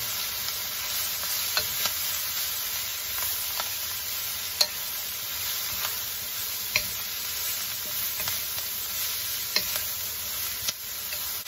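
Shredded napa cabbage sizzling in a hot wok as a wooden spatula stirs and tosses it, with now and then a sharp tap of the spatula against the wok.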